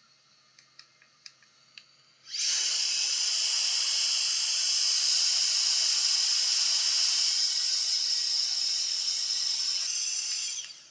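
A jet of air blown onto a freshly hot-air-soldered USB-C charging port to cool the solder joints: a steady hiss with a thin high whine, starting about two seconds in and cutting off shortly before the end.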